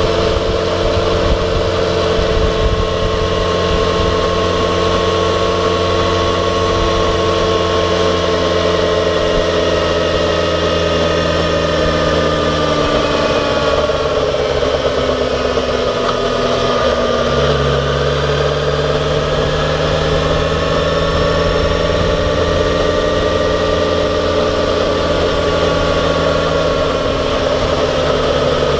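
Yamaha XJ6F motorcycle's 600cc inline-four engine running steadily under way. Its note drifts slowly down and back up, and the low drone shifts about 17 seconds in.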